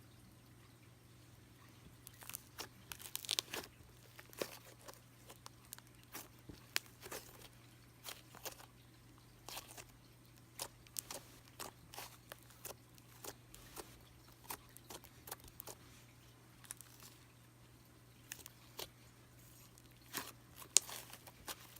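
Cream-cheese-textured slime being squished and stretched by hand, making irregular sticky clicks and crackling pops. The clicks crowd together about two to four seconds in, and there is one loud pop near the end.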